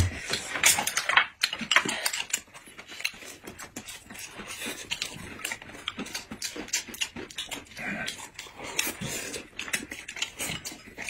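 Two people eating rice fast with chopsticks from glass bowls: many quick, irregular clicks of chopsticks against the glass, with chewing and breathing sounds.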